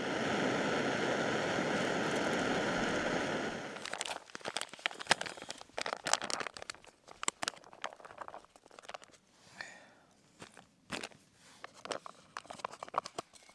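Canister gas stove burning with a steady hiss for about the first four seconds. Then the crinkle and crackle of a foil ready-meal pouch being squeezed out into a bowl, with irregular clicks and scrapes of a spoon.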